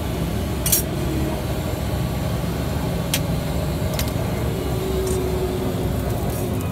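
A few sharp clicks of a metal spatula against a steel griddle, the loudest about a second in, over a steady low rumble.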